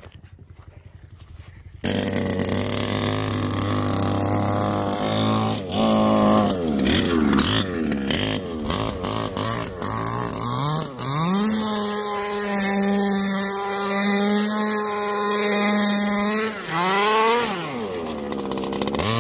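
The 30.5cc two-stroke OBR engine of a 1/5-scale Baja buggy, coming in suddenly about two seconds in and revving up and down in quick blips. It then holds high revs for about five seconds, drops back, and revs up again near the end.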